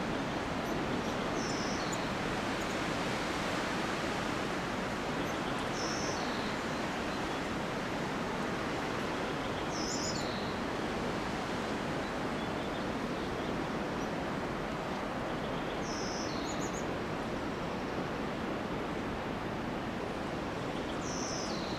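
Steady rush of wind through Monterey pine trees, with a bird giving a short high two-note call five times, about every four to five seconds.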